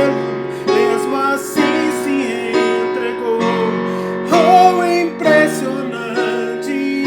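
Electronic keyboard playing music: sustained chords that change every one to two seconds under a wavering melody line.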